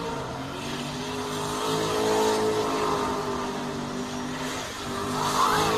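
A motor vehicle engine running steadily, with a brief squeal near the end.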